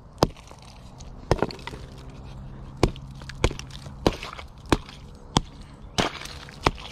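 Wooden-handled hammer striking a sheet of ice frozen over water in a plastic bowl, breaking it up: about nine sharp knocks, coming faster after the first few.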